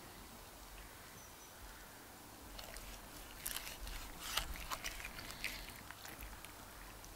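Knife slicing through the crisp, roasted skin and meat of a barbecued bird: a run of sharp crackles and crunches starting about two and a half seconds in, loudest around the middle and easing off near the end.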